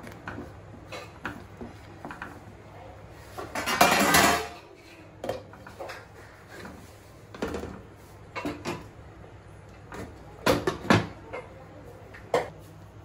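Cookware clatter: a wooden spatula scraping through thick curry gravy in a pan, and a glass lid being set on it. A louder scraping rush comes about four seconds in, followed by a string of separate knocks and clinks.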